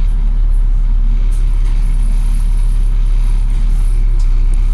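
Volvo B7TL bus's 7.3-litre diesel engine running steadily under way, heard from inside the passenger cabin, its sound sitting mostly in the low range.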